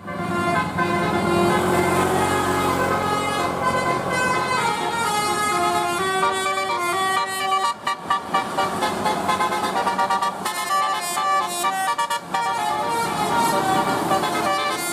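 Bus telolet horn, a set of tuned air horns, playing a tune of several notes at once that change pitch in quick steps.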